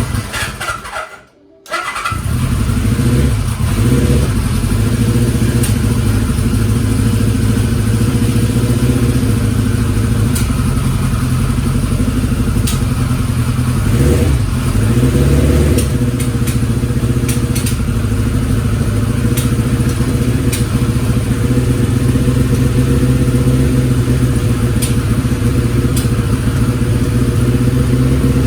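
Kawasaki Z1's air-cooled inline-four being cranked on the starter and catching about two seconds in, then idling steadily with a brief rev about halfway through. Sharp clicks come and go over the running engine, part of the loud abnormal mechanical noise the engine is known to make.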